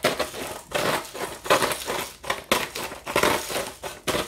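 Hand-twisted salt grinder crushing salt crystals, in a run of short grinding bursts about two or three a second.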